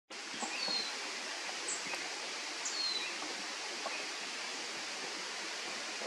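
Steady outdoor hiss with faint, high bird calls: two falling whistles, about half a second and three seconds in, and a short note in between.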